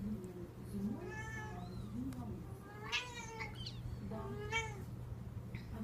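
Six-week-old Devon Rex kittens meowing: three high-pitched mews, about one, three and four and a half seconds in.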